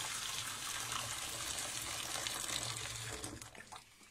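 Boiling water poured from a kettle into an air fryer basket, a steady splashing gush that tapers off and stops near the end.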